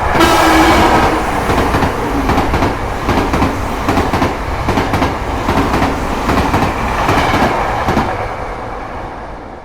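Train running on the rails: a steady rumble with the clatter of wheels over rail joints, easing off slightly over the last couple of seconds.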